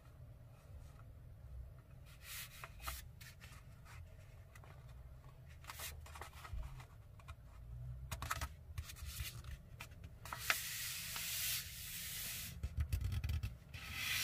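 A sheet of printer paper being folded in half by hand: scattered crackles and rustles as it is lifted and bent over, then longer, louder sliding rubs from about ten seconds in as a hand presses the fold flat into a crease.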